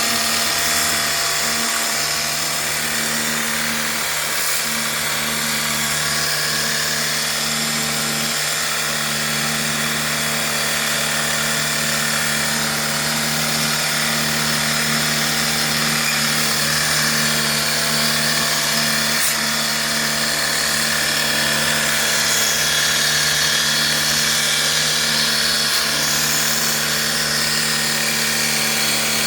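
Small electric water-jet washing pump running steadily, its motor humming, with the hiss of the spray over it as the air conditioner is washed out.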